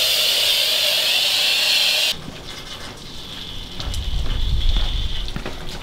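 High-pressure lance at a self-service car wash spraying, a steady loud hiss that cuts off abruptly about two seconds in. A quieter low rumble follows toward the end.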